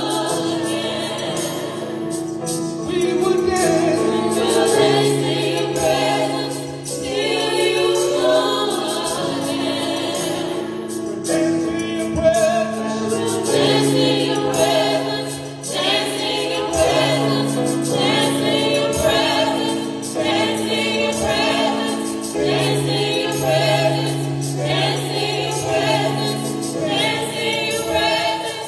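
A small group of women singing a gospel song together through microphones and a PA, over an accompaniment of long held bass notes.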